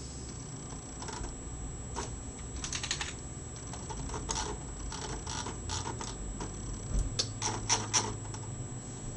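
Scattered clicking on a computer keyboard, with short bunches of clicks about three seconds in and again around seven to eight seconds in.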